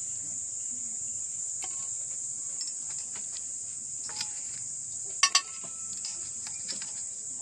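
Garlic cloves and a red chilli dropped onto a stainless steel plate: a few light taps, then two sharp clinks about five seconds in with the plate ringing briefly. A steady high-pitched insect chorus runs underneath.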